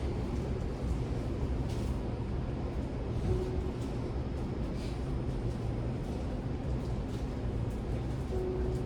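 Steady low rumble inside a Toei Mita Line 6500-series subway car, with a few faint clicks.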